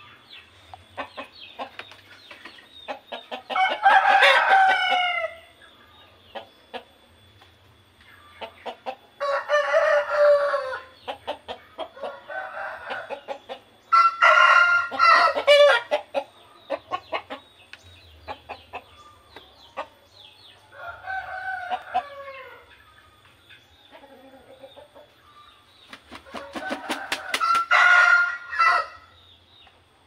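Roosters crowing, about five long crows a few seconds apart, each a drawn-out, pitched call.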